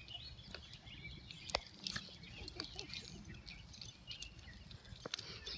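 A beagle puppy and a small white dog playing together on grass: a few scattered sharp taps and rustles from their scuffling, the loudest about a second and a half in.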